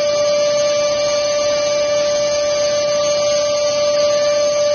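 Small canister wet/dry shop vacuum running steadily: an even motor hum with one strong high tone held throughout, over a rush of air.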